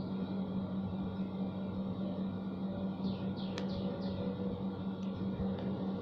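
A steady low hum, with a few quick falling bird chirps and a single sharp click about three and a half seconds in.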